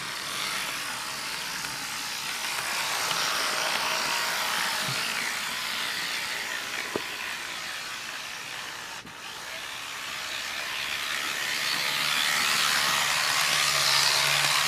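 Brass model EMD SD45 locomotive's electric motor and gears whirring steadily as it runs along the track. The sound grows louder over the last few seconds as the locomotive comes close.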